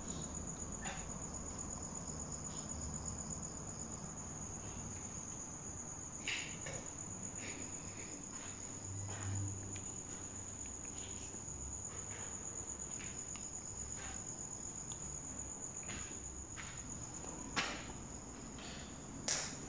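Crickets trilling steadily at a high pitch, with a few scattered clicks and knocks, the sharpest near the end.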